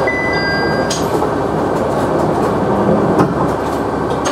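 KiHa 100 diesel railcar standing at a platform with its engine idling, heard from inside at the front of the car. A steady running noise, with a thin high tone that stops about a second in and a few short clicks.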